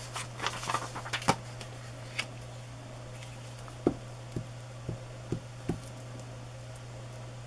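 Paper being handled and rustled in the first second or so, then a glue stick dabbed and rubbed over a manila shipping tag on paper, giving a few light knocks against the tabletop. A steady low hum runs underneath.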